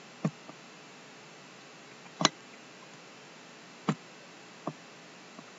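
Computer mouse clicking: four sharp, irregularly spaced clicks with a couple of fainter ticks between, over a faint steady hiss.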